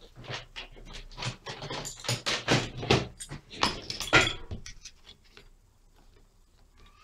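Tools and the plastic and metal parts of a dismantled mechanical dryer timer being handled, with a small flat screwdriver worked against the timer's plastic frame and metal plate. A dense run of clicks, knocks and scrapes lasts about four and a half seconds, then only a few light ticks follow.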